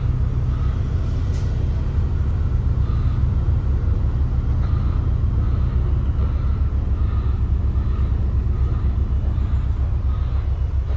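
Steady low rumble of a London double-decker bus running, heard from its upper deck.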